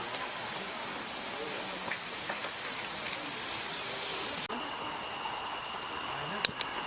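Steady, high-pitched chorus of insects chirring outdoors in summer. About four and a half seconds in, the loud chorus cuts off abruptly and a quieter, single steady high trill carries on, with a couple of sharp clicks near the end.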